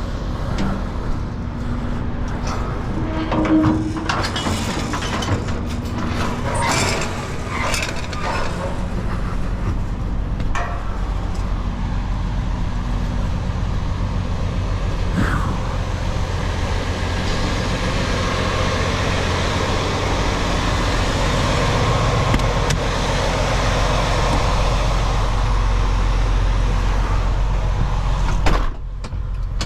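A semi truck's diesel engine idling steadily, with a scatter of clanks and knocks over the first ten seconds and one sharp knock near the end.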